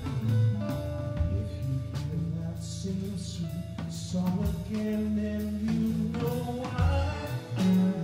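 Live band playing: electric guitar with long sustained notes over a drum kit.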